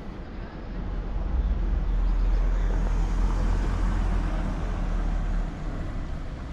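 A motor vehicle driving past on the street: a deep rumble with tyre and engine noise that swells over the first couple of seconds and drops away about five seconds in.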